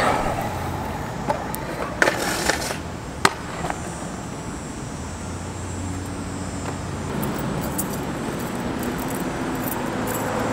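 Stunt scooter clattering and knocking on concrete, with a short rattle about two seconds in and a sharp knock a second later, then a steady low hum of road traffic.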